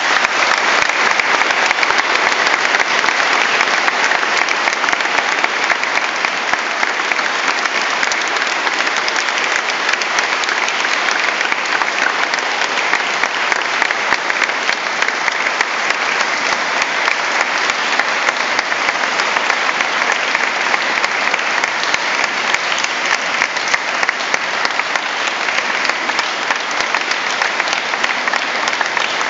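A church congregation applauding: loud, steady clapping that goes on without a break.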